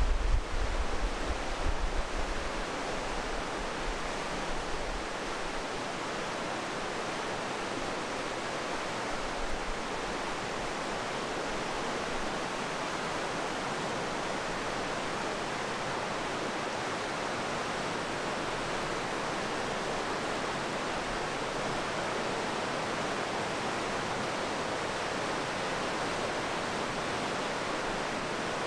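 Steady rush of a fast mountain river running through a narrow rock gorge. Wind buffets the microphone for the first few seconds, then the water noise carries on evenly.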